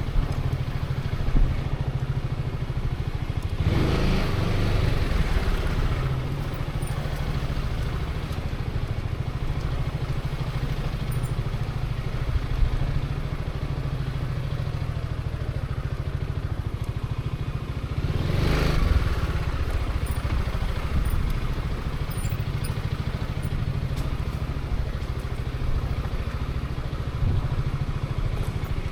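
Zontes 350E's single-cylinder engine running steadily at low riding speed, with two brief louder surges, one about four seconds in and another about two-thirds of the way through.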